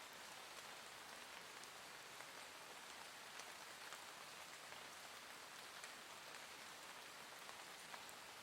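Soft, gentle rain falling steadily: an even hiss with scattered faint drop ticks.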